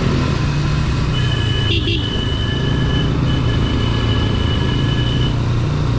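Motorcycle running at road speed, its engine and road noise a steady low rumble. A vehicle horn sounds as a high, steady tone from about a second in until about five seconds, with a brief break in the middle.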